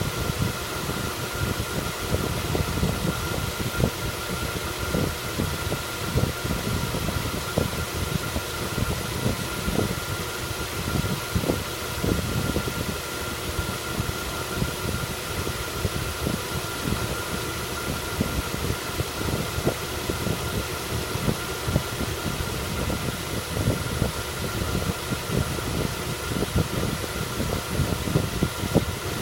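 Mazda 3 running with irregular knocking from its automatic transmission over a steady mechanical running noise. The owner describes the fault as a knock that appears when coasting and goes away under throttle.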